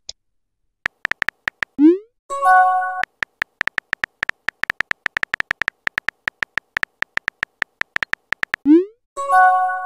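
Texting-app sound effects: rapid keyboard-tap clicks as letters are typed, a short rising blip about two seconds in, then a brief chime. The taps run on quickly, several a second, and the rising blip and chime come again near the end.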